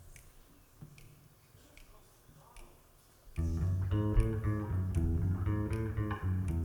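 A brief hush with a few faint clicks, then live cueca music starts about three and a half seconds in: rhythmic guitar chords over a bass line.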